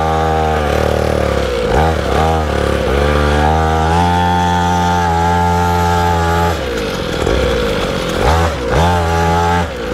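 Small SYX Moto 50cc two-stroke pit bike engine revving under way, its pitch rising and falling with the throttle several times, then held at high revs for about two and a half seconds before dropping back and winding up again near the end.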